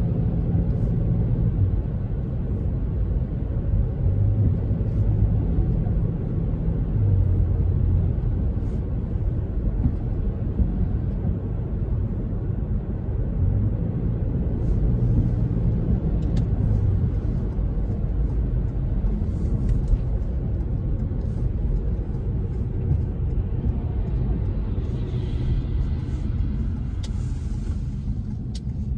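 Car driving on a wet road, heard from inside the cabin: a steady low engine and road rumble with tyre noise.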